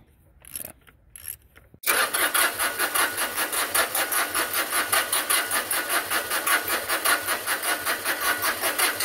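Starter cranking the Ford 1520's three-cylinder diesel engine, an even rapid pulsing that starts suddenly about two seconds in. The fuel system is being bled of air at the injector lines, and the engine turns over without firing. Before the cranking, a few light metal clinks of a wrench on the battery terminal.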